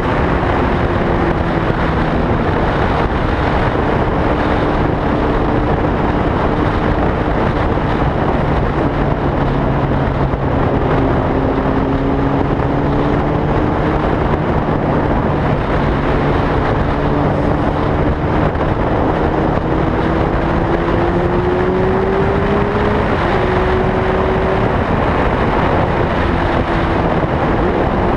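A motor running without a break under a heavy rushing noise, its pitch drifting slowly up and down over several seconds.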